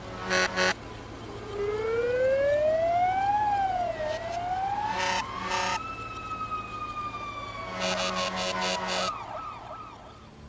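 Fire truck siren wailing up and down in pitch, broken by groups of short horn blasts near the start, about five seconds in, and a longer run of blasts near the end, all played backwards.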